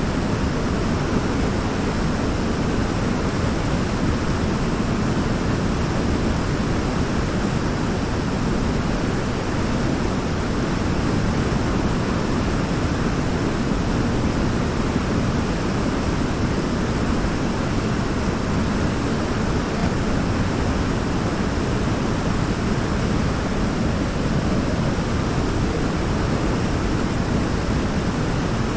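Waterfall pouring over a large rock in a river: steady, unbroken rushing water, strongest in the low range.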